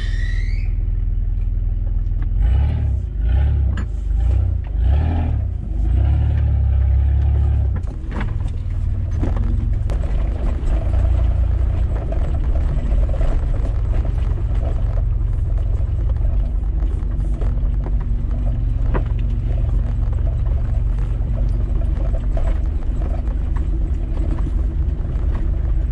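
A 4x4 driving over a rough dirt track, heard from inside the cab: a steady low rumble of engine and tyres, with scattered knocks and clatter from the bumps.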